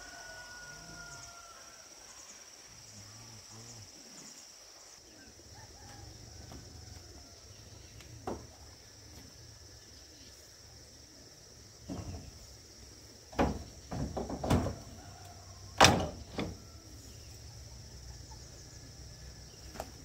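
A handful of sharp knocks and clatters, the loudest about two thirds of the way in, over a steady high chirring of insects.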